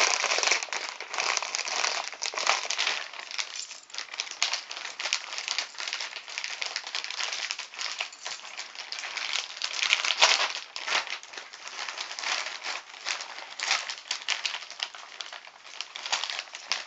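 Packaging being unwrapped and handled: continuous crinkling and rustling with many small crackles and clicks.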